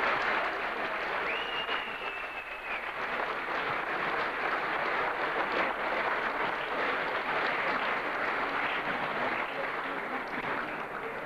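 Audience applauding steadily, a continuous crackle of many hands clapping.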